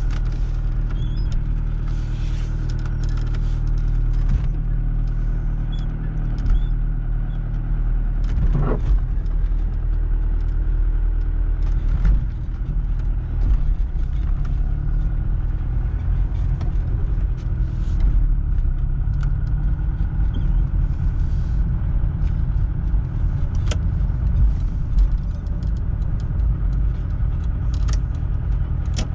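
A 1986 Volkswagen Passat B2 being driven slowly, heard inside the cabin: a steady engine hum and road rumble, with a short rising whine about eight seconds in.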